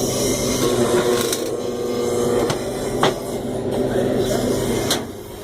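Stick-welding arc burning: a steady crackling hiss over a low electrical buzz from the welder, with a couple of sharp pops, stopping just before the end.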